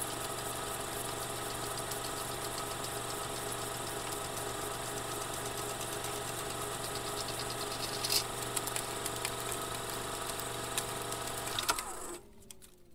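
Film projector running: a steady motor hum under a fast, even clatter, with a louder click about eight seconds in. It stops about twelve seconds in, and the motor winds down in falling tones.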